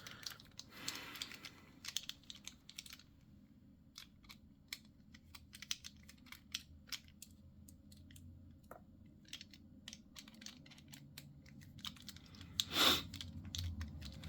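Irregular small metallic clicks and ticks of a precision screwdriver with a Torx bit turning out the small screws of a folding knife's handle, with one louder brief scrape near the end.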